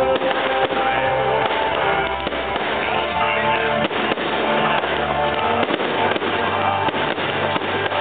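Music playing throughout, with the sharp bangs and crackle of fireworks bursting over it several times.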